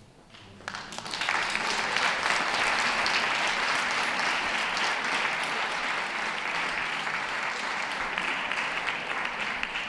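Audience applauding. The applause starts with a few claps just under a second in, swells quickly to a steady full clapping and begins to die away at the very end.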